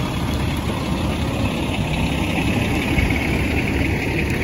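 Fire engine's diesel engine running steadily at idle close by: a continuous low rumble.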